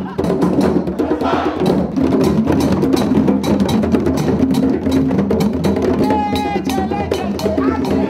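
Group of djembes played together in a steady, dense rhythm of many hand strikes, with a voice calling out over the drumming about six seconds in.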